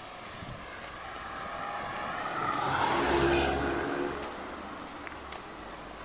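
A car drives past close by. Its engine and tyre noise swell to a peak about three seconds in, then fade away.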